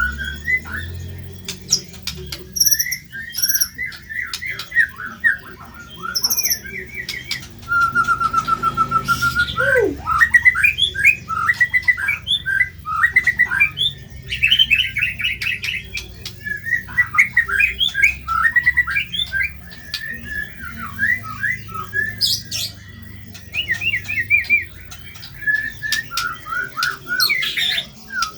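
White-rumped shama (murai batu) singing a fast, varied song of harsh chattering notes and trills, with a held whistle and then a steeply falling note about a third of the way through.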